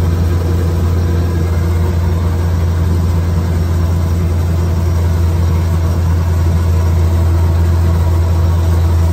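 John Deere 45 self-propelled combine running steadily while cutting wheat: a constant low engine hum with the even noise of the reel, header and threshing separator working.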